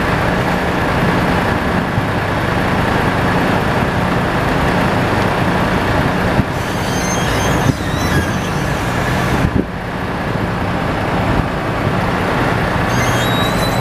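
Engines running steadily close by, the forklift working at the flatbed's lumber load over an idling truck, with a couple of brief knocks around the middle.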